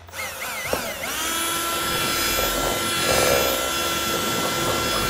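Cordless drill boring an oversized hole through a plastic body panel. The motor whine wavers in pitch for about the first second as it spins up, then holds a steady speed.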